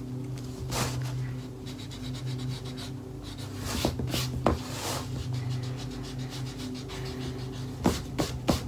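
Pencil and eraser scratching and rubbing on a painted canvas in a few short strokes, over a steady low hum.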